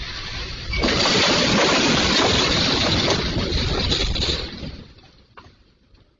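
Glacier ice bridge collapsing into the lake: a loud, rushing roar of crashing ice and water that surges about a second in, holds for a few seconds, then dies away.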